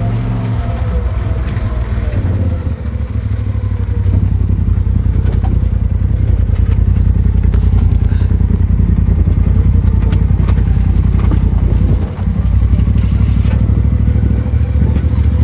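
Side-by-side UTV engine running steadily while driving. It grows louder about four seconds in and dips briefly about twelve seconds in, with occasional short knocks over it.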